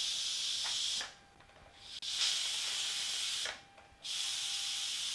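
Steam hissing out of an Instant Pot Duo Crisp's pressure-release valve in three bursts as the release button is pressed and let go, letting the pressure out little by little after pressure cooking.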